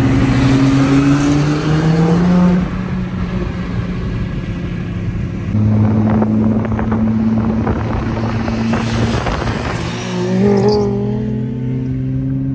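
Car engine accelerating hard under throttle. Its pitch climbs for the first couple of seconds, drops, holds steady for a few seconds, then climbs again near the end.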